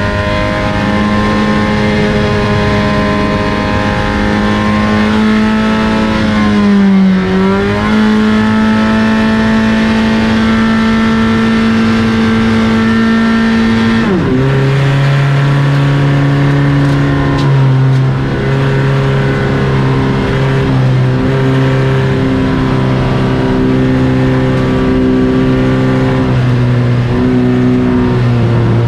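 Race car engines running hard at steady high revs. The pitch dips briefly about seven seconds in, then falls sharply about fourteen seconds in and holds lower, with small shifts near the end.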